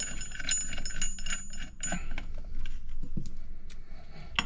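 Small steel cap-head bolts clinking as they are handled and threaded by hand into a clutch puller's metal adapter plate: a run of light metallic clicks with a faint ring, thickest in the first two seconds.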